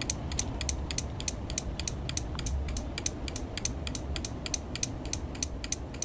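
Relays in a homemade relay-and-capacitor flasher circuit clicking on and off in an even, fast train of about five clicks a second as the circuit pulses its lamp. A 200-ohm resistor in the second relay's signal line slows its switching.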